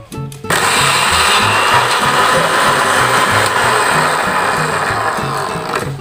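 Panasonic blender's dry-grinding mill running at speed, chopping pieces of candied winter melon fine. It starts about half a second in as a loud, steady whir and eases slightly near the end.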